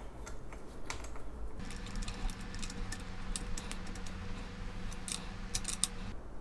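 Light irregular metallic clicks and taps of a small supplied assembly tool working on the nut and bolt of a toddler tricycle's handlebar clamp as it is tightened.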